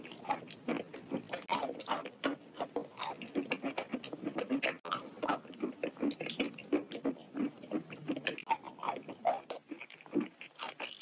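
Close-miked ASMR chewing of a mouthful of chole chawal (chickpea curry and rice): a fast, irregular run of mouth clicks and lip smacks.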